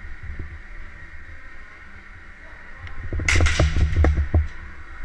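Low thuds of movement, then a quick cluster of sharp clicks and knocks a little over three seconds in, lasting about a second.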